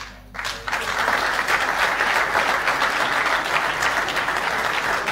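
Audience applauding, starting about half a second in and holding steady as a dense clatter of many hands.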